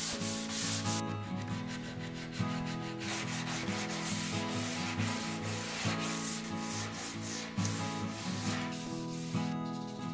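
Solid oak being hand-sanded with 180-grit abrasive on a handheld sanding pad, rubbed back and forth in quick strokes, with brief pauses as the pad moves to another part.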